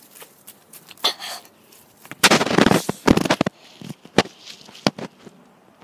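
Handling noise from a handheld camera jostled while a ball is kicked around on grass: a run of sharp pops and knocks, with a loud rustling burst about two seconds in.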